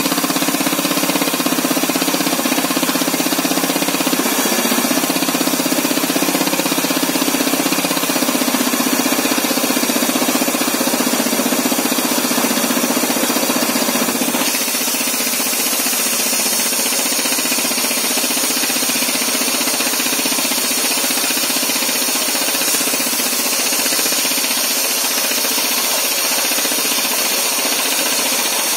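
MK5 pneumatic rock drill rig drilling into rock, a steady dense hammering with air hiss. About halfway through, the low drone weakens and the hiss grows louder.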